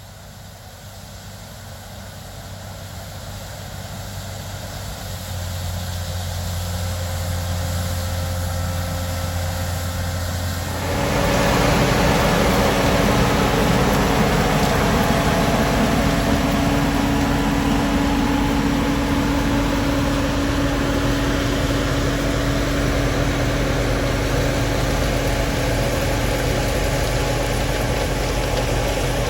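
A large farm-machinery engine running, growing steadily louder over the first several seconds, then stepping up suddenly about eleven seconds in to a louder, fuller, steady run.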